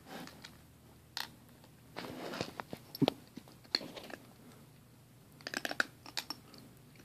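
Cat eating dry kibble from a plastic bowl: irregular sharp crunches as it chews, with a quick run of crunches about five and a half seconds in.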